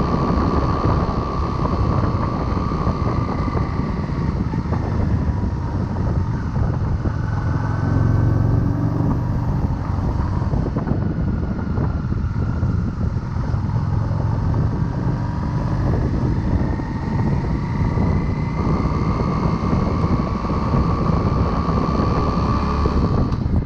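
Motorcycle on the move: its engine note climbs in pitch several times as it accelerates, under heavy wind rush on a chest-mounted microphone.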